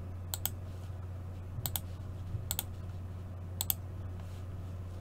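Quick clicks at a computer, coming in four pairs spaced about a second apart, over a low steady hum.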